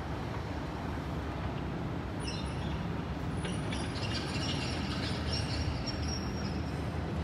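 A train running over the rails with a steady low rumble; from about two seconds in, a high-pitched metallic wheel squeal comes and goes for about four seconds.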